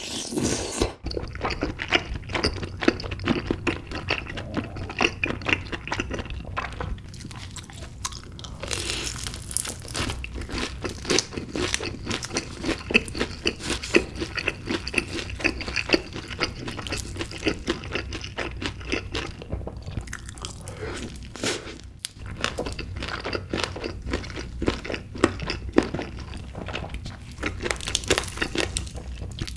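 Close-miked eating: wet chewing of chewy tteokbokki rice cakes in spicy sauce, and crunchy bites of honey-glazed fried chicken, a dense run of small crunches and mouth clicks.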